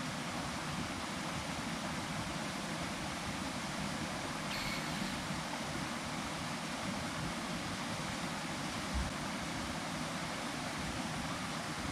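Steady rushing of a waterfall, an even hiss of falling water.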